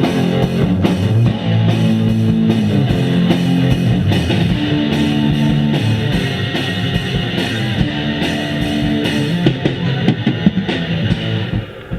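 Instrumental rock passage: guitars and a drum kit playing, with no vocals. Near the end the band drops out briefly before the next verse.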